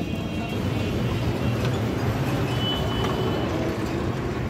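Steady low rumble of vehicle engines and traffic, with a hiss over it and a short high-pitched tone about two and a half seconds in.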